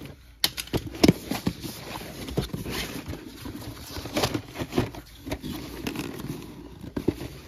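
Utility knife slitting the packing tape on a cardboard shipping case, then the flaps being pulled open and handled: a string of scrapes, crackles and knocks, the loudest a sharp knock about a second in.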